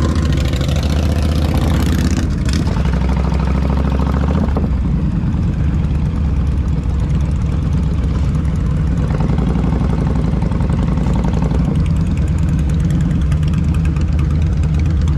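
Cruiser motorcycle engine idling steadily close by, with other motorcycles idling around it.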